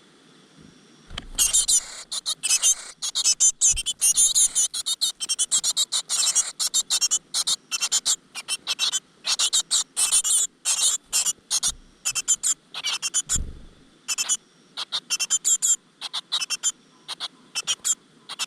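Great tit nestlings begging: a chorus of rapid, high-pitched cheeping calls that starts about a second in, is busiest over the next several seconds, and carries on in quick bursts.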